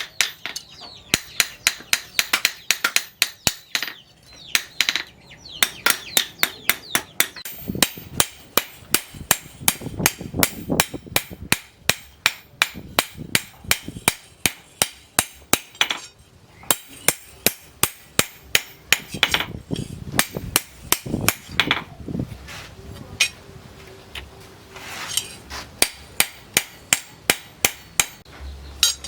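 Blacksmith's hammer beating rebar steel on an anvil to forge a knife blade: quick runs of sharp metal blows, about three to four a second, broken by short pauses.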